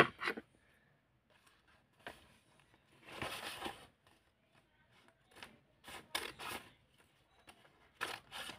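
Scissors cutting through a paper envelope: one longer cut about three seconds in, then several short snips and paper rustles near the end.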